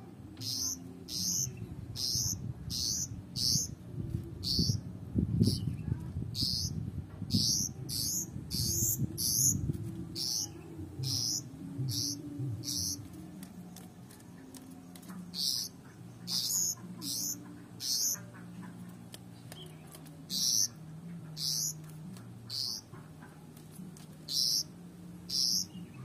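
Young pied bushchat giving short, high chirps over and over, about two a second at first and more sparsely later, over a low background rumble.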